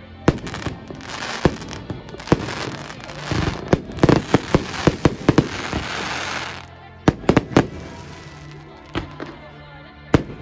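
Fireworks display: a barrage of sharp shell bangs over a haze of crackling stars, most rapid around the middle. The crackle dies away about two-thirds of the way through, leaving a few scattered bangs.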